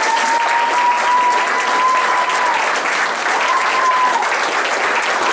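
A congregation applauding, dense steady clapping by many hands, with a high held tone sounding twice over it.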